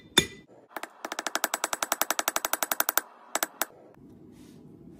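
Hand hammer striking a hot, thin steel bar on an anvil: one ringing blow, then about a second in a fast run of light taps, about ten a second for two seconds, and two more blows just after.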